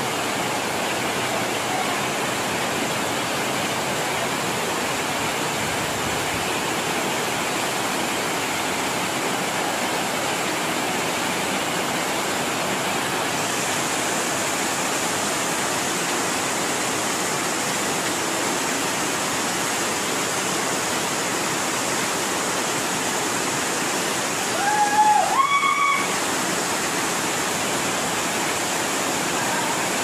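Small waterfall cascading over rocks: a steady rush of falling water. Near the end, a brief, louder high-pitched call rises over it.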